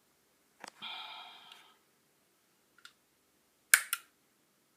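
Sharp clicks of a rocker switch being flipped and a Sonoff Mini smart switch's relay clicking in response, the loudest a quick pair about three-quarters of the way through. Near the start a fainter click is followed by a brief steady tone lasting about a second.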